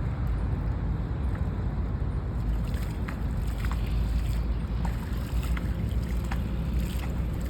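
Wind rumbling on the microphone over open water, with a few faint small splashes or drips.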